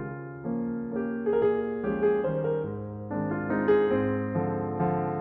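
Background piano music: a gentle sequence of struck notes and chords that ring and fade, changing about every half second to a second.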